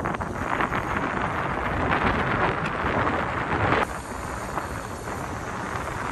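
Wind rushing over the microphone as a bicycle descends a mountain road at speed, easing slightly about four seconds in.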